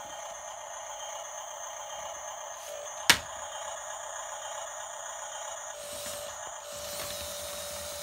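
Toy RC bulldozer's small electric motors and plastic gearing whining steadily as it crawls on its tracks, with one sharp click about three seconds in. Near six seconds the whine changes to a lower steady tone with more rumble underneath.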